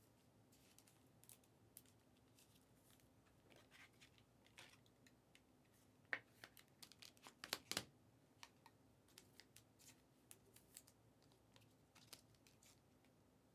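Faint rustling and scattered light clicks from trading cards and plastic card holders being handled and sorted, with a brief run of sharper clicks a little past the middle.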